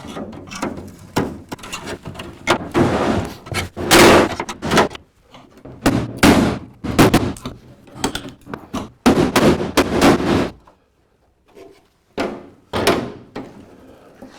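Steel hammer driving a drift to knock a riveted capping off a Land Rover Series 3's aluminium rear body tub: a long run of irregular, ringing metal strikes, with a short pause about eleven seconds in.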